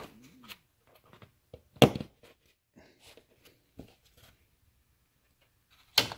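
Plastic push-pin clips being pressed into place by thumb: two sharp snaps, about two seconds in and near the end, with lighter taps and rubbing of fingers on the plastic trim between.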